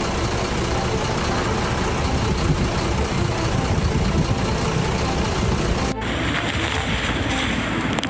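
Typhoon wind and rain on a city street: a gusty low rumble of wind over steady rain hiss, with traffic on the wet road. About six seconds in the sound changes abruptly to a lighter, higher rain hiss.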